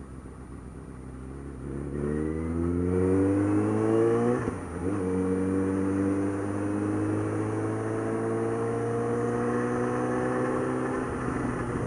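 Suzuki GSX650F's inline-four engine accelerating, its exhaust note rising in pitch. There is a brief dip about four and a half seconds in, like an upshift, and then it climbs steadily again until easing off near the end.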